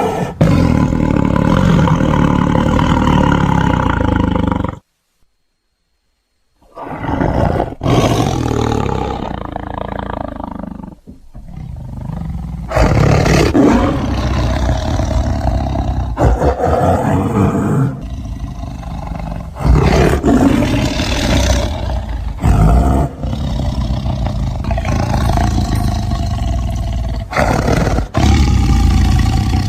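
Tiger roaring repeatedly, in a string of spliced clips that change abruptly every few seconds, with a silent gap of about two seconds about five seconds in.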